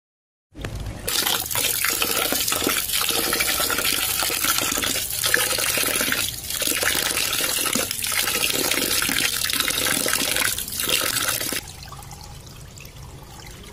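A stream of water splashing into an aluminium basin of soaked split black gram (biuli dal) while a hand swishes and rubs the lentils, washing off the loosened husks. It starts suddenly about half a second in, and near the end the splashing gives way to a quieter trickle as the cloudy water is tipped off.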